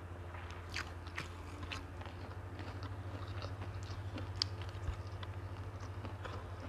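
Close-miked mouth sounds of a person chewing food, with many short, sharp clicks scattered irregularly. A steady low hum runs underneath.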